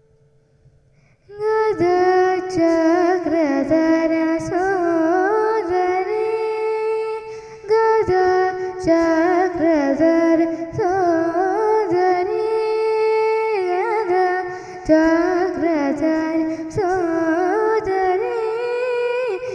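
A woman singing into a microphone: long held notes that bend and slide between pitches in ornamented phrases, starting about a second in.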